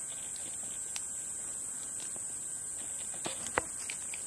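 Steady high-pitched chorus of insects, crickets or cicadas, with a few sharp clicks and snaps, the loudest about three and a half seconds in.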